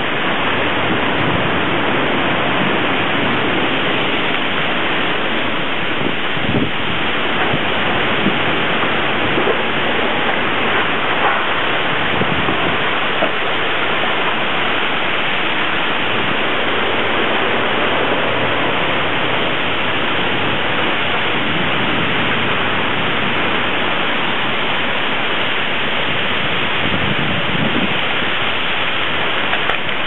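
Heavy rain and strong thunderstorm wind, a loud steady rushing noise with no let-up.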